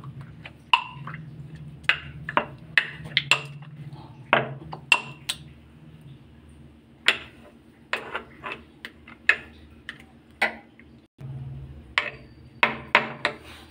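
Metal pestle pounding soft roasted tomatoes in a metal mortar: irregular knocks and clinks, about two a second, some of them ringing briefly.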